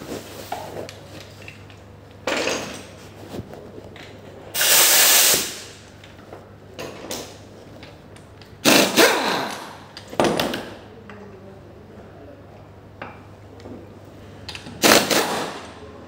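Workshop tools in short bursts during a brake pad job: a hiss about a second long around five seconds in, and briefer power-tool bursts near two, nine, ten and fifteen seconds, over a steady low hum.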